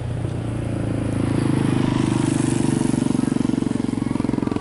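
Tour bus diesel engine drawing close, its low, rapidly pulsing rumble growing louder over the first second or so and then holding steady.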